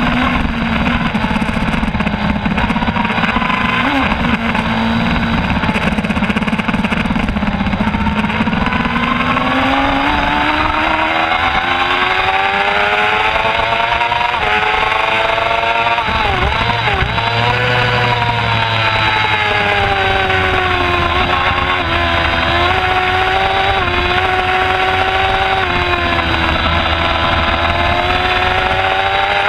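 Middleweight sport-bike engine at race pace, heard onboard over wind rush. The revs drop at the start and stay low, climb steadily from about eight seconds in, dip briefly in the middle, run high, and fall again near the end.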